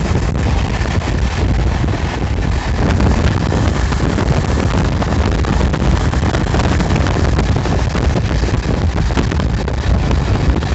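Loud, steady wind rushing over the microphone, with a deep rumble underneath, as heard from a moving vehicle.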